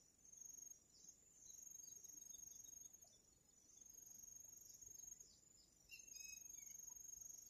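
Crickets trilling faintly: one steady high-pitched trill that swells and fades, weakest in the middle and strongest again near the end, with a few faint short chirps.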